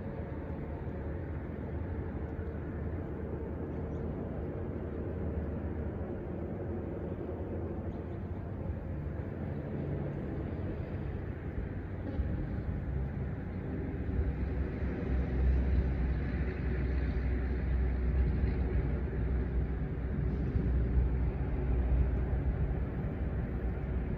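Steady low rumble of a distant engine, growing louder a little past the middle.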